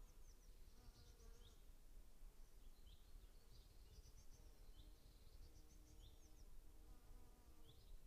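Faint spring outdoor ambience: small birds chirping with short, repeated high calls. An insect buzzes past about a second in and again near the end, over a low steady rumble.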